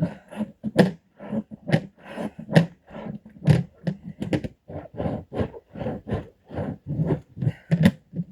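Clothes being worked by hand in a bucket of water, a steady run of short splashing strokes about three a second.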